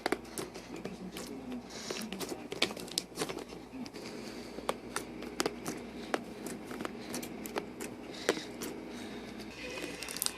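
Slime being squished and worked by hand, giving irregular sharp clicks and pops as air pockets burst.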